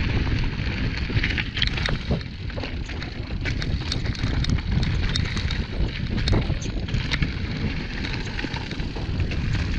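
Wind buffeting the microphone of a mountain bike descending a rocky trail, with the tyres crunching over stones and gravel and the bike rattling and clicking irregularly over the bumps.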